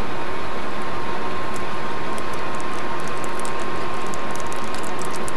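Steady, loud whir of the space station's ventilation, with a constant hum running through it. Over it come scattered light clicks and rustles of hands working a roll of adhesive tape and copper wire, and these grow more frequent in the second half.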